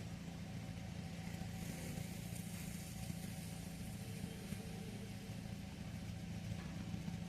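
Hyundai HB20's engine running with a steady low hum.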